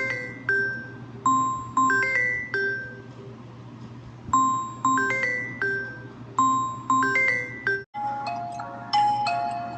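Samsung phone ringtone: a short melody of bell-like chiming notes that plays twice, then cuts off about eight seconds in as a different ringtone with quicker notes begins.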